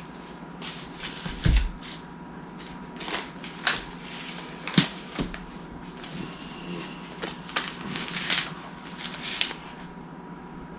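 Irregular clicks, knocks and rustles of objects being handled, over a faint steady whine.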